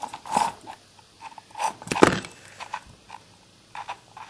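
Irregular metal clicks and clinks, about two a second, with one louder knock about two seconds in, as the nut is worked off the blade shaft of a gasoline lawn edger.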